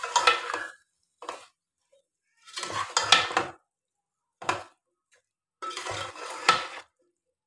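A metal spoon scraping and clinking against a metal cooking pot, in about five separate bursts, as cauliflower and potato pieces are stirred into the masala.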